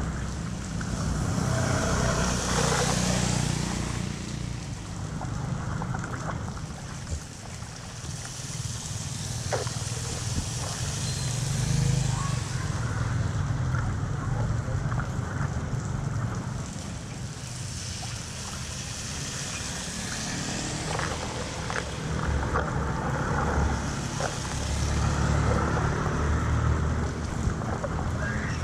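Floodwater rushing and splashing, with a low rumble underneath; the hiss of the water swells and fades several times.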